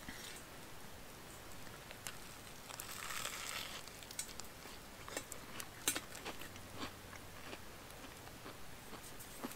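A person biting into and chewing a toasted sandwich of bread, peanut butter and pickles. Faint crunching comes with the bite about three seconds in, followed by scattered small chewing clicks.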